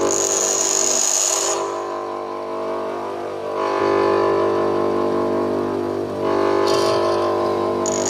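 Grinder motor running steadily while an HSS lathe tool bit is ground against the wheel in short passes, with a high-pitched grinding hiss in the first second and a half and again near the end.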